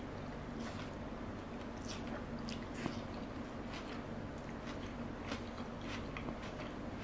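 A person chewing a soft Peking duck pancake wrap, with small wet mouth clicks and smacks scattered throughout, over a steady low hum.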